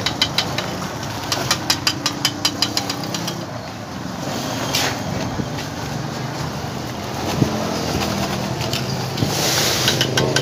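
A small engine running steadily, with runs of quick light ticking at about five a second and a short scrape a little under five seconds in.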